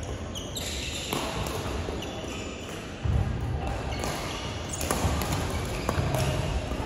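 Badminton rally in a large sports hall: rackets striking the shuttlecock several times, with players' footsteps thudding on the wooden court floor.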